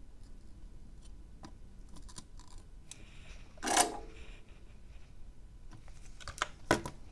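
Small clicks and taps of hand tools being handled on a workbench during soldering, with one louder short clatter about halfway through and a few sharper clicks near the end.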